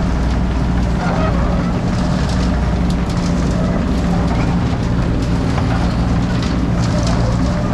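Heavy engine running steadily with a constant low drone, with faint scattered clicks and knocks over it.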